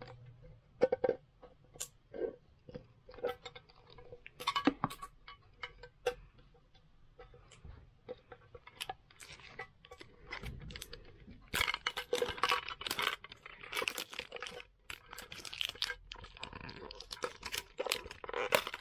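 Plastic wrapping crinkling and tearing, with light clicks and knocks from handling a trading-card tin as it is unwrapped and opened. The crackling gets denser and louder about halfway through.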